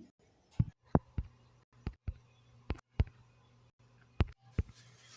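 A series of sharp, irregular taps or knocks, about a dozen over five seconds, against a faint low hum.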